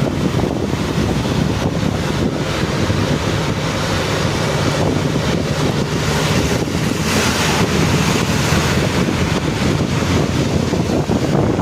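Bus travelling at speed on a highway: steady road rumble and wind buffeting the microphone, with a brighter hiss swelling for about two seconds past the middle.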